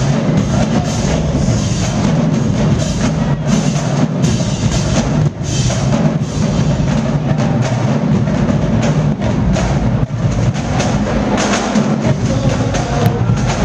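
College marching band playing loud and without a break, with a driving drumline of snares, tenor and bass drums and deep sousaphone lows, echoing in a gymnasium.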